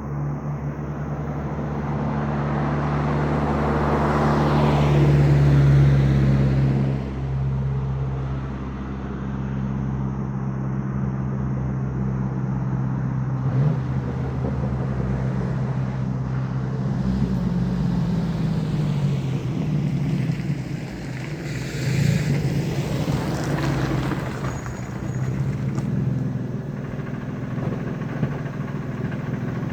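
A 2000 Ford F-150's 4.2-litre V6 running through a straight-piped exhaust (muffler deleted, catalytic converters kept). The exhaust note swells to its loudest about five seconds in, then runs steadily, with a smaller swell a little past twenty seconds.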